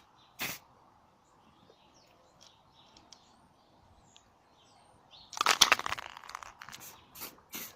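Aerosol can of clear lacquer sprayed in short bursts: one just after the start, a longer, louder stretch of about a second about five and a half seconds in, and a few quick puffs near the end. Birds chirp faintly in the background.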